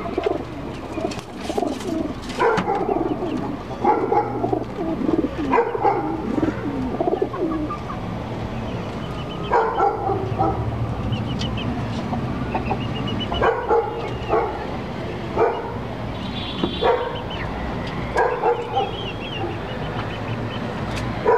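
Domestic pigeons cooing and hens clucking in their coop: a busy run of calls for the first several seconds, then single calls every second or two.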